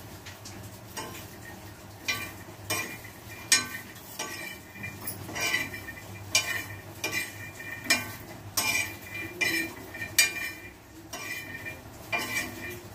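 Metal spoon stirring peanuts as they dry-roast in a pan: irregular clinks and scrapes against the pan, some with a short metallic ring, roughly one or two a second.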